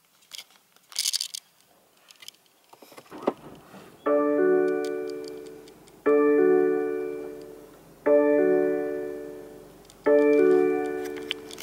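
BMW 118i's reverse-gear warning chime, the newer 2017 version. It is a bell-like chord of several tones that sounds about every two seconds, each one fading away, and it begins about four seconds in once reverse is engaged. Before it come a few clicks and a knock.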